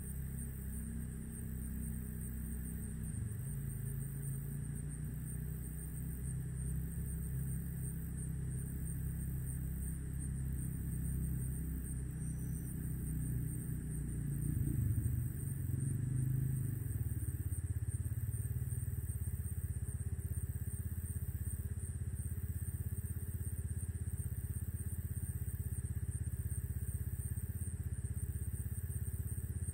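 A steady low engine-like rumble that changes in tone about seventeen seconds in, with a constant high hiss above it.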